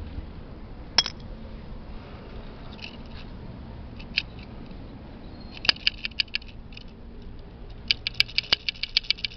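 Small, sharp metal clicks from a single-cylinder motorcycle carburetor being handled and worked: one click about a second in, another around four seconds, then a quick run of about six and, near the end, a faster run of about ten.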